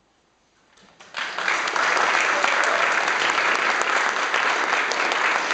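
Near silence, then an audience breaks into applause about a second in and keeps clapping steadily: applause at the close of a piece.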